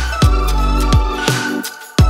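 Background electronic music with a heavy bass and a steady kick drum beat; the bass drops out briefly near the end.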